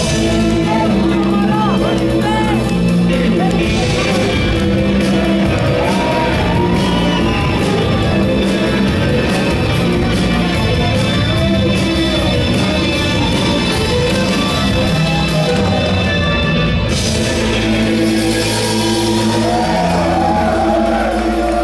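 A live rock band playing an instrumental intro in a large hall: electric guitar, keyboard and drums, with held notes under steady cymbal ticking. The cymbals swell louder about three quarters of the way through.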